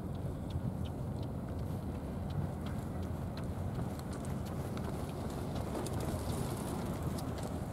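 Steady low outdoor rumble, with faint, irregular small clicks scattered over it.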